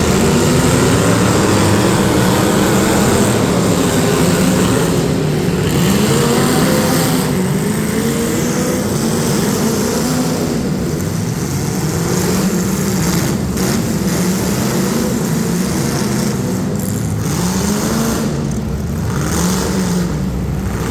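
Several demolition derby street stock car engines revving, overlapping, their pitch rising and falling again and again as the cars accelerate and back off.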